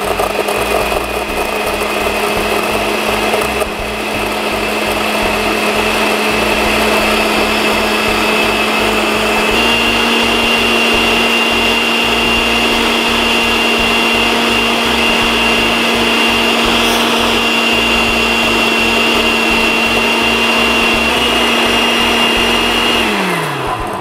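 Oster countertop blender running steadily as it purées a vegan mayonnaise. Its motor pitch steps up a little about ten seconds in. Near the end the motor is switched off and winds down.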